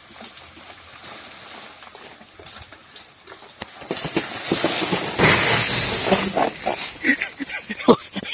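Rustling and crackling of leafy plants being pushed and handled, growing louder from about four seconds in, with scattered small snaps.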